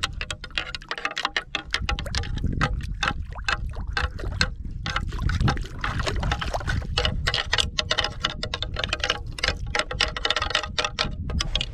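A pair of deer antlers rattled and clacked together in rapid, irregular clicks, in the manner of antler rattling that mimics sparring bucks. Partway through they are worked in shallow water, so the clacking mixes with splashing.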